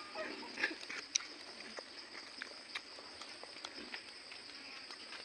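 Eating sounds: faint chewing and mouth noises with scattered small clicks and taps, one sharper click about a second in.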